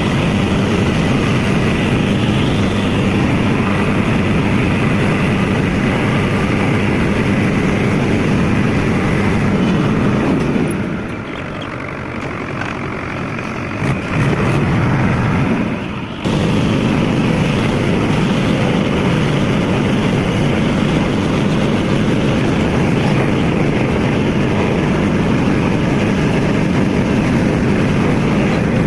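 Mahindra 575 DI XP Plus tractor's four-cylinder diesel engine running loud and steady. It turns quieter for a few seconds around the middle, then comes back to full level abruptly.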